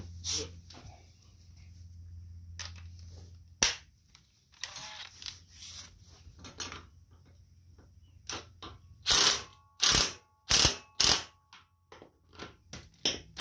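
Socket ratchet clicking in short strokes as the front wheel's axle bolt is tightened down. The strokes come in scattered bursts, with a run of four loud ones about two-thirds through.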